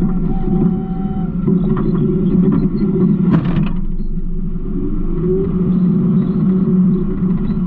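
Garbage truck running with a steady low rumble, with a few knocks and rattles and a short, louder clattering burst about three seconds in.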